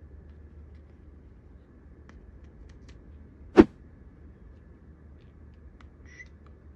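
Small plastic toy dump truck being handled: one sharp plastic click about three and a half seconds in, with a few faint ticks before and after, over a low steady hum.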